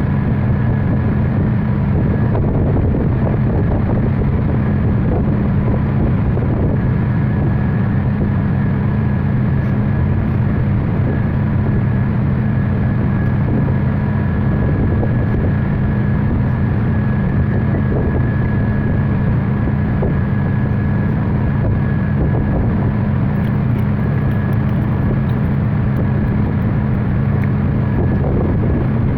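Lister TS air-cooled diesel engine running at a steady speed, a continuous low, even drone.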